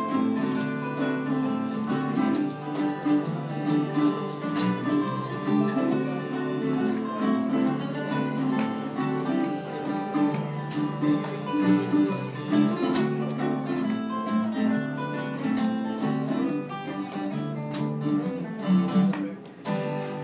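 Acoustic guitars played together, strummed chords under picked melody notes, as a live small-group performance of a Hawaiian song; the playing breaks off shortly before the end.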